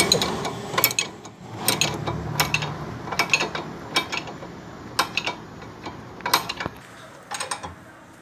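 Worn front stabilizer link clicking in its loose ball joint as it is rocked by hand: short metallic clacks about once a second, which stop near the end. The clicking is the sign of play in the joint, the fault behind the car's front-suspension noise.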